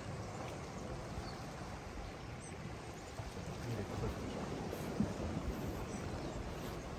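Calm sea water lapping and washing against shoreline rocks, a low steady wash.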